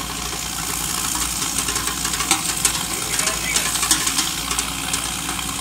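Mechanical demining machine's engine running steadily as it crawls across the field, with frequent irregular crackles and ticks laid over it from about a second and a half in.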